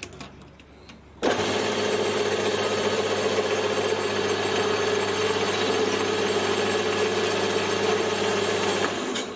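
Small metal lathe switched on about a second in, its motor and drive running steadily with the three-jaw chuck spinning, then switched off near the end.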